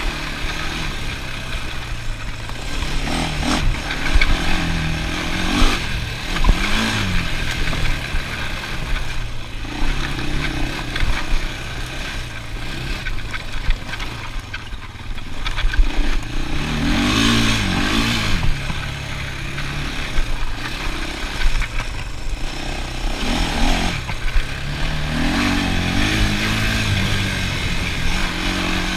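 ATV engine running while being ridden, its pitch rising and falling a few times as the throttle is opened and eased off, with knocks and rattles throughout.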